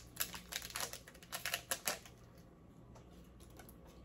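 Plastic seasoning sachets crinkling and being torn open by hand: a quick run of crackly clicks over the first two seconds, then fainter rustling.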